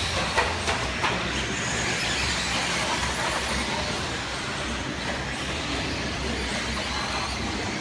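Electric 1/10-scale RC stadium trucks racing on an indoor dirt track: a steady wash of motor and tyre noise echoing through the hall, with a few sharp clacks about half a second to a second in.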